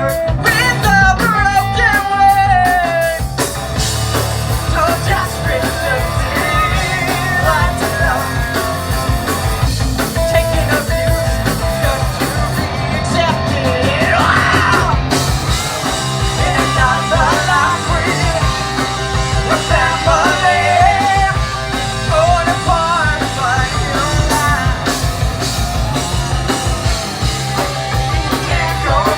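A live rock band playing a song with a singer over a steady beat.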